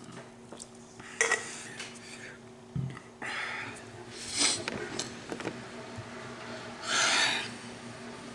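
A person breathing hard and sniffing after gulping fizzy soda, in several separate breathy bursts, the strongest about four and seven seconds in. There is a sharp knock about a second in.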